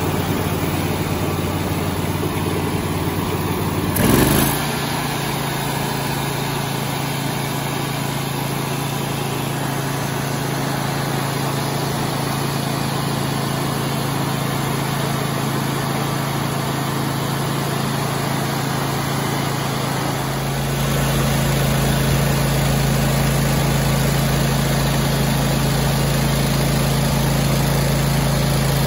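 Kawasaki FS481V air-cooled V-twin mower engine running steadily, warming up after a breather gasket repair so it can be checked for oil leaks. There is a brief loud burst about four seconds in, and about twenty seconds in the engine note shifts and grows louder.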